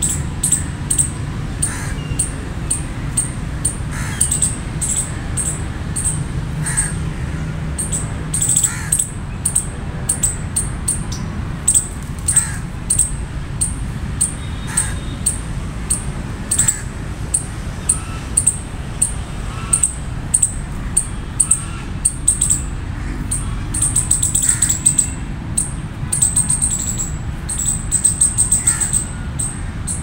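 Palm squirrels calling: short, high-pitched chirps repeated in quick runs, with a few lower calls now and then over a steady low hum.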